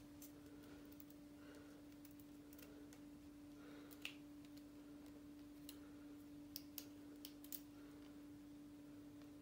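Near silence with a steady low hum, broken by a few faint, sharp clicks of thin gold wire being bent and handled in the fingers; the loudest click comes about four seconds in.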